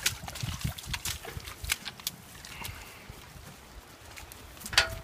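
Horses moving about at close range: scattered soft thuds and clicks, with a louder sound near the end.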